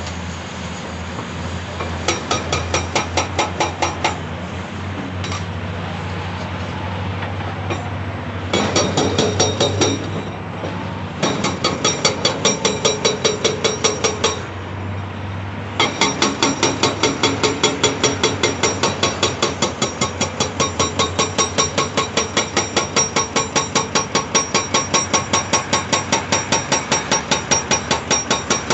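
Hydraulic breaker on a CAT 349E excavator hammering rock in rapid, evenly spaced blows, several a second, over the steady hum of the excavator's diesel engine. It hammers in three short runs with pauses between, then keeps going without a break from about halfway through.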